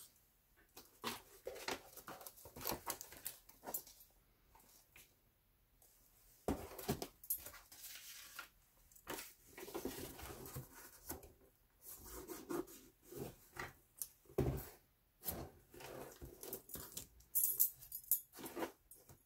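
Intermittent rustling, sliding and tapping of paper cards and a kraft-paper-wrapped cardboard box being handled, with a few brighter clinks of metal bangles on the wrist near the end.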